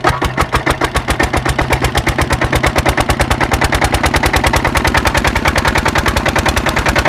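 Diesel engine of a farm tubewell pump running steadily, its exhaust beating in a fast, even rhythm of about ten sharp beats a second.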